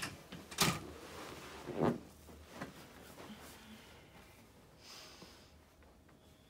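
A patient settling onto their side on a padded treatment table: rustling and creaking, with a couple of short soft knocks in the first two seconds and a brief rustle near the end.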